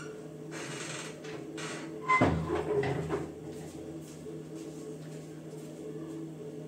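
A sharp knock with a brief ringing tone about two seconds in, followed by a smaller one, over a steady low hum; a couple of soft shaking or rustling sounds come just before it.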